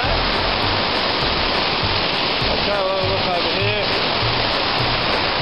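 Waterfall: white water pouring steadily down a rock face, heard close up as a loud, even rush.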